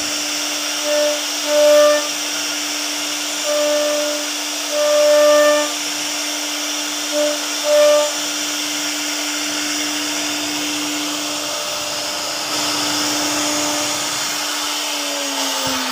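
CNC router spindle cutting into a wooden door panel: a steady whine under a dense cutting hiss. Short higher-pitched tones come and go during the first half. Near the end the whine drops in pitch.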